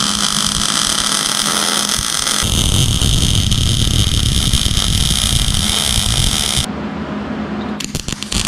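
Wire-feed welder arc crackling steadily as a bead is laid on steel tabs of a car subframe; the tone changes about two and a half seconds in, the arc stops near seven seconds, then comes back in a few short bursts near the end.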